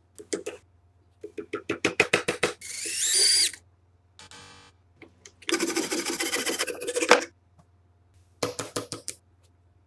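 Hand-tool work on a hammer handle: quick runs of sharp taps, a rising swoosh about three seconds in, and a rasping burst of nearly two seconds in the middle.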